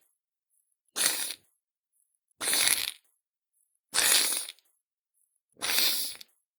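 Four separate wet slime splats, each about half a second long, with silence between them.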